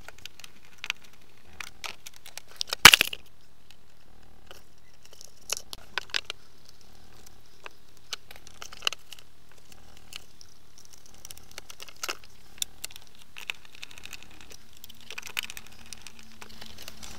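Hands-on wiring noises: scattered light clicks and rustles as a plastic cover is handled and a screwdriver works the solar charge controller's screw terminals, with one sharp, loud click about three seconds in.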